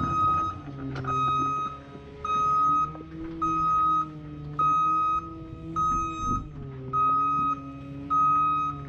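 Zamboni ice resurfacer's reversing alarm beeping about once a second while the machine backs up, each beep about half a second long. Underneath, the machine runs with a hum that rises and falls slightly in pitch.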